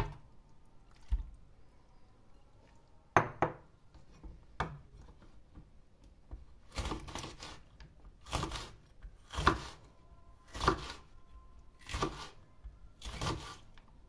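Diced raw meat drops onto a metal baking tray with a thump, followed by a few knocks and clicks. Then come six even, crunching knife cuts about a second apart, a knife slicing green peppers on a wooden cutting board.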